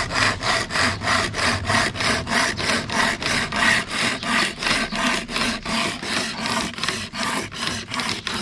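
Commando wire saw rasping back and forth through a PVC plastic pipe in a steady, even rhythm of about three to four strokes a second.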